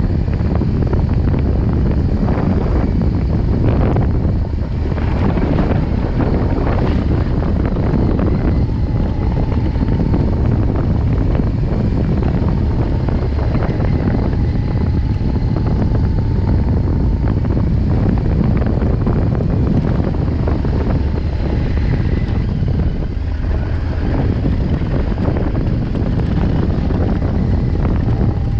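BMW R1200GS boxer-twin engine running steadily at low speed, with wind buffeting the microphone.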